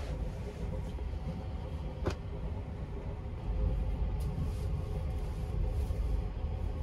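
Steady low rumble of the Sunrise Express sleeper train running, heard inside a private compartment, with a faint hum over it. A single sharp click comes about two seconds in.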